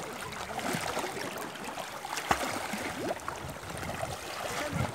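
Sea water splashing and lapping around a swimmer floating on an inflatable swim ring and kicking through the shallows, with one sharp click about two seconds in.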